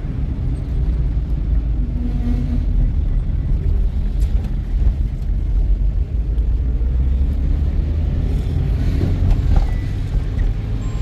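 An engine running with a steady low drone.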